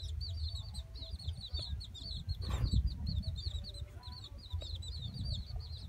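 A brood of chicks peeping continuously, many short, high, arching peeps overlapping several times a second. A low rumble runs underneath, and a brief rustle comes about two and a half seconds in.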